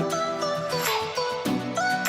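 Background music: a melody moving in stepping notes over a steady beat.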